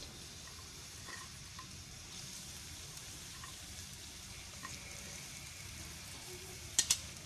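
Green bell pepper strips sizzling in hot oil in a wok, a steady hiss with a few small pops. Two sharp clicks come near the end.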